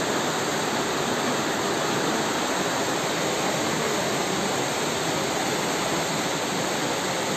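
Flash-flood water from an overflowing mountain stream rushing down a paved street: a steady, unbroken rush of water.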